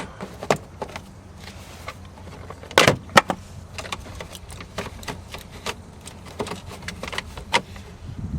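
Scattered clicks and knocks of hand work on the plastic cover around a minivan's steering column as its three screws are taken out from below and the cover is worked loose, with a louder clatter of knocks about three seconds in.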